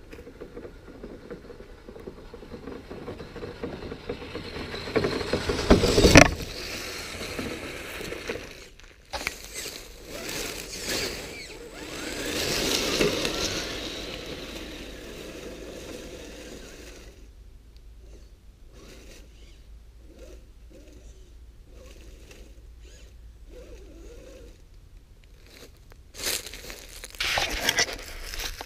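Redcat Gen8 scale RC crawler driving through dry leaves and over rocks: leaves crunching and rustling under its tyres. Louder spells come about six seconds in, around thirteen seconds and near the end, with quieter crackling between.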